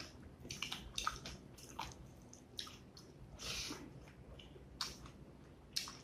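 Close-miked wet, sticky squishing and smacking of cooked rice and beef curry being mixed by hand on a plate, along with chewing. The clicks and smacks come irregularly, with a longer squelch about three and a half seconds in.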